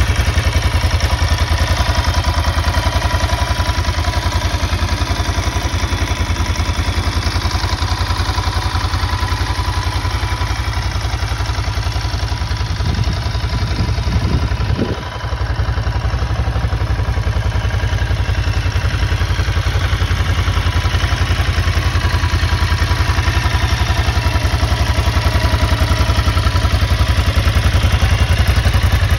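Ducati MH900e's air-cooled 90-degree V-twin idling steadily with an even low exhaust pulse, with a brief dip in loudness about halfway through.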